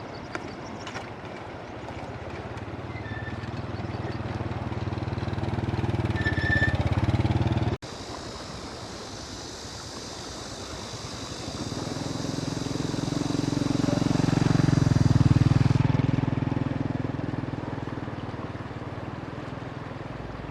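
A vehicle engine runs, growing louder and then stopping abruptly about eight seconds in. A second engine then rises to a peak and fades away, like a vehicle passing by.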